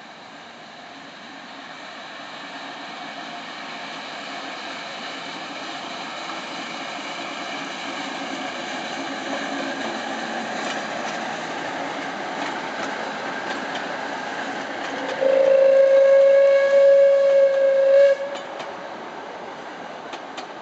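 Narrow-gauge diesel locomotive 199 102 hauling a passenger train past, its engine and rolling stock growing louder as it approaches. About fifteen seconds in it sounds one long, steady horn blast lasting some three seconds, then the coaches roll by with a few light clicks.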